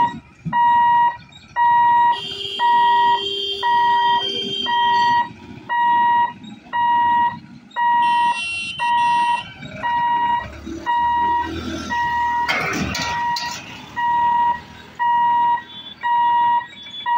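Level-crossing warning hooter beeping steadily, about one evenly spaced beep a second on a single tone, sounding while the boom barriers close for an approaching train.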